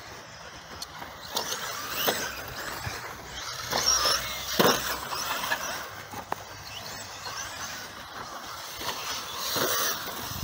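Radio-controlled model rally car driving on a dirt track: its motor whines, rising and falling in pitch with the throttle, over a gritty scrabble of tyres on the surface. There are a few sharp knocks, the loudest about halfway through.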